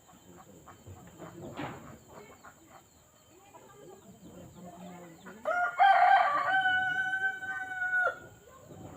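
A rooster crowing once, starting a little past the middle and lasting about two and a half seconds, held on one note and falling away at the end.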